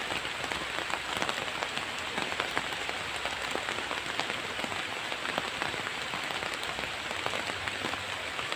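Steady rain falling, a dense even hiss studded with many small, irregular drop impacts.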